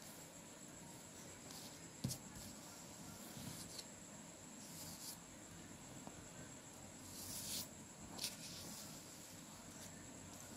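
Faint scratching and rustling of a pencil and hands on yellow card paper, in several short scratchy strokes, with one light tap about two seconds in.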